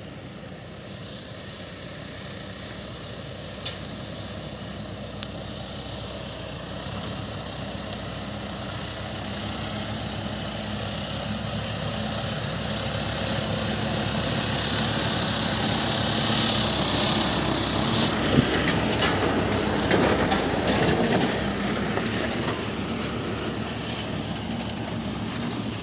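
Mitsubishi Triton pickup driving slowly over a rough, rocky dirt track, its engine growing steadily louder as it approaches and passes, then easing a little as it pulls away. Near the loudest point, a few sharp knocks and a crunching rattle ring out.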